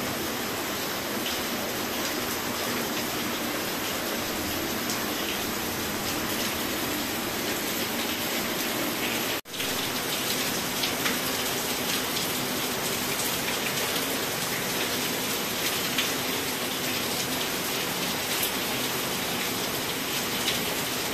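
Heavy rain pouring down, with water running off a roof edge and splashing into standing water: a steady rushing hiss that breaks off for an instant about halfway through.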